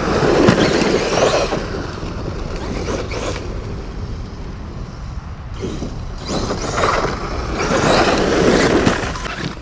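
Arrma Outcast 8S EXB RC monster truck driving hard on sandy dirt: its brushless motor whines up in pitch under throttle while the tyres throw sand and gravel. It comes in surges, a strong one in the first second or so, a short one near three seconds, and a long run from about six to nine seconds.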